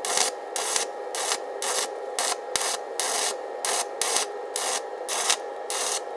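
Flux-core wire welding arc from a Keygree Flux-155 inverter welder in gasless MIG mode, crackling and sputtering in bursts about three times a second as the wire feeds into thicker steel plate.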